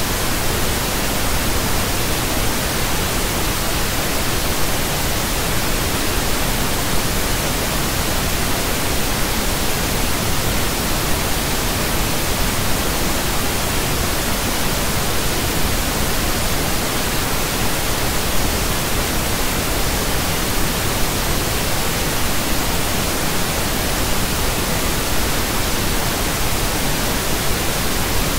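Pink noise: a steady, even hiss across the whole range, with no change.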